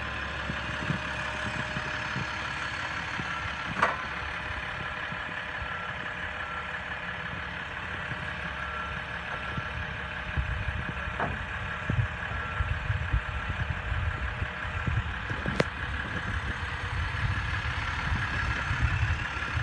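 Vehicle engine idling steadily, with a faint repeated beep for a while and a few sharp clicks or knocks; the low rumble grows heavier about halfway through.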